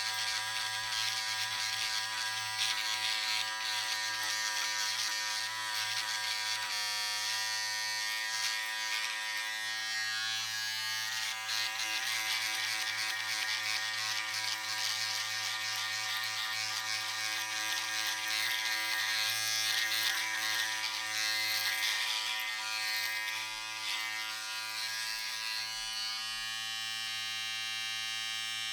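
Electric razor shaving: a steady motor buzz with a scratchy cutting sound on top that rises and falls as it works. Near the end the scratchy part fades, leaving mostly the plain buzz.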